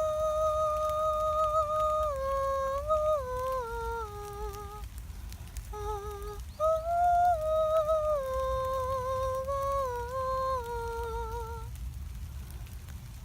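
A slow, wordless melody in a single pure, high tone: long held notes that step downward in two phrases, each ending in a short pause, over a steady low rumble.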